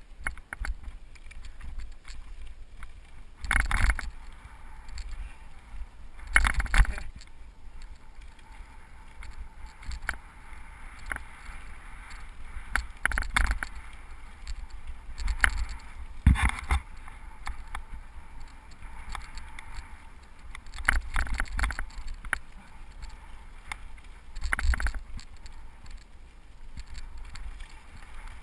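Cyclocross bike rolling down a dry, gravelly singletrack: steady tyre and rushing noise with the bike rattling and clattering over bumps and stones, and a handful of louder jolts spread through.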